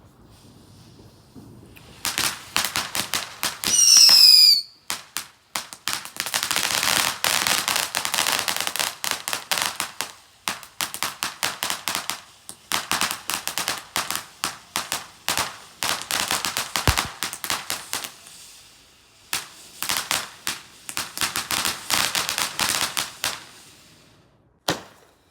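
Fireworks going off: a short whistle falling in pitch, then long runs of rapid crackling bangs with brief pauses between them.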